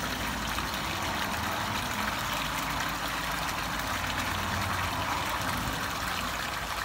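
Water pouring from the open end of a PVC pipe into a garden pond, a steady splashing.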